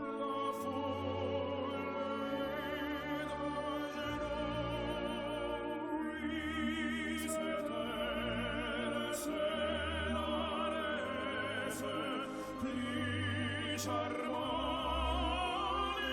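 Background music in classical style: a singing voice with strong vibrato over sustained low orchestral notes.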